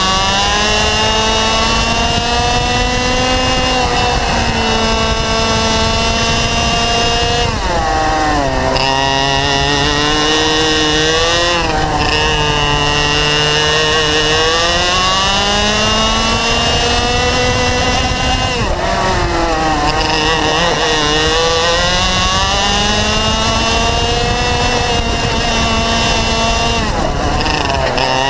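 Racing kart's two-stroke engine at full race pace, heard from onboard the kart. Its revs climb high on the straights and drop sharply when the driver lifts for corners, about eight and nineteen seconds in, with shorter dips near twelve seconds and near the end, each followed by a quick climb back up.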